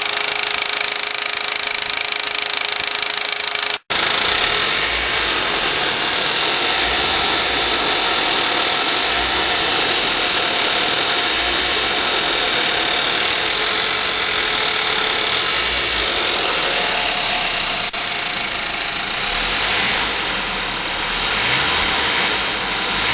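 The 2004 Volkswagen Passat 1.8T turbocharged four-cylinder engine running steadily, recorded close up. The owner is chasing a clicking, ticking noise from the rear of the engine that comes and goes, which some have told him is a lifter. The sound cuts out for an instant about four seconds in.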